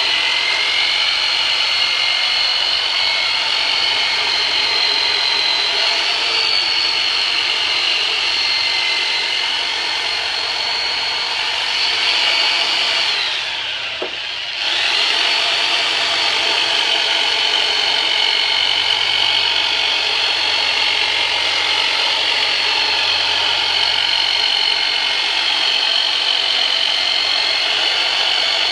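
A 'turbinator' electric soft-tissue massage tool runs with a steady high motor whine while it is worked over the low back and pelvis. About halfway through it briefly drops in pitch and nearly stops, then picks back up.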